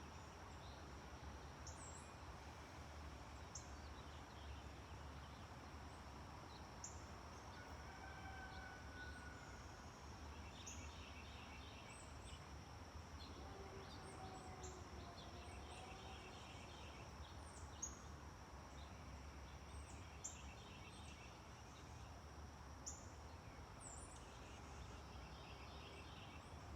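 Near-silent outdoor background: a steady high insect drone, short high bird chirps every couple of seconds with a few soft trills, over a low hum.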